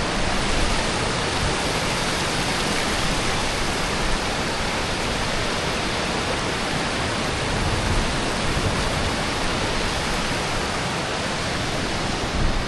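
Waterfalls and cascading water rushing in a steady, even roar of white water.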